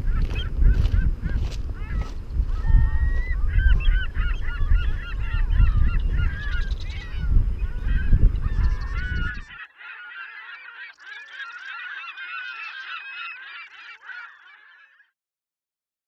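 A flock of geese honking, many overlapping calls, over wind rumbling on the microphone. The wind cuts off suddenly about ten seconds in, and the honking fades out a few seconds later.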